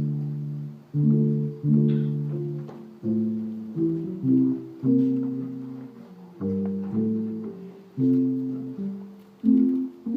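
Slow instrumental music: chords struck about once a second, each left to fade before the next.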